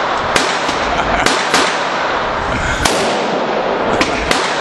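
Gunfire: about six short, sharp shots at uneven intervals over a steady background hiss.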